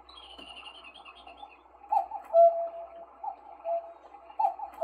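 Sinix 602 cuckoo clock calling the hour: repeated two-note cuckoo calls, a short higher note then a held lower one, about one every 1.3 seconds, three of them starting about two seconds in. Faint high chirping comes before the first call.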